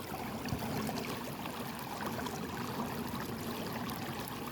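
Creek water rushing steadily over rapids into a deep pool.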